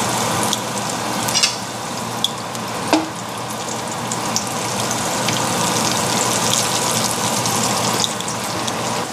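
Flour-coated chicken pieces deep-frying in hot oil in a cast iron pot: a steady sizzle with dense crackling, and two brief louder pops or knocks about a second and a half and three seconds in.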